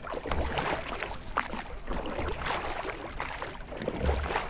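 Oars dipping and splashing as a small skiff is rowed backwards, with water sloshing against the hull in irregular strokes.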